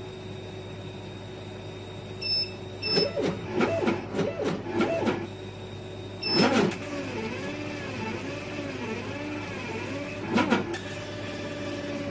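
Laser cutter's gantry motors whining in repeated rising-and-falling arcs as the head traces small circles, over a steady hum. Several short, louder rattling bursts come between two and five seconds in, again at about six seconds, and near ten seconds.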